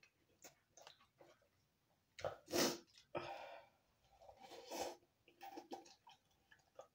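Person eating fiery ghost-pepper noodles from a cup: a loud, sharp burst of breath about two seconds in, then more noisy breaths and small mouth and utensil sounds.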